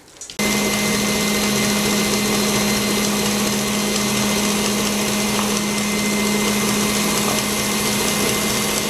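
Stand mixer switched on about half a second in, then running steadily with a constant motor hum as its wire whisk beats strawberry purée with egg white.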